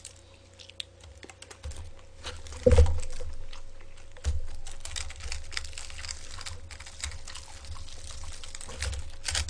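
Close-up crackling and clicking from fried chicken being eaten and handled, with pieces picked through in a paper-lined takeaway box. There is one heavy thump about two and a half seconds in, and the handling grows denser from about four seconds in.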